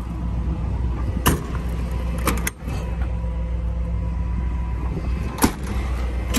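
Steady low hum of the truck's 6.4-litre gas V8 idling, with sharp clicks and knocks of utility-body compartment doors and latches being handled: one about a second in, a quick pair a little past two seconds, and the loudest a little after five seconds.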